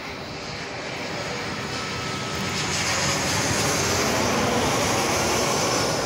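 Twin-engine jet airliner with its landing gear down, passing low overhead on approach. The jet-engine roar grows louder over the first few seconds, then holds at its loudest.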